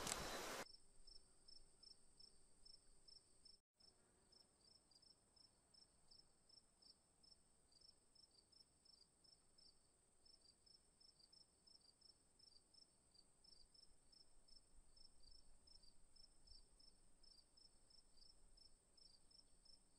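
Crickets chirping faintly, about three short chirps a second, over a steady high insect trill. A loud rush of noise cuts off just after the start.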